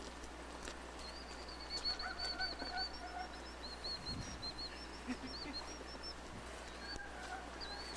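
Birds calling: runs of quick, short, high chirps, several a second, with fainter lower calls underneath.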